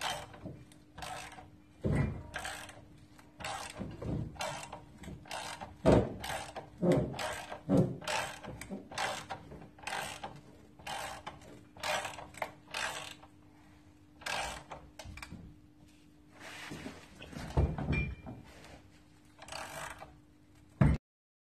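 Hand ratchet wrench clicking in quick runs of strokes while bolts are worked at the torque tube and transaxle of a Porsche 944, with a few louder metal knocks.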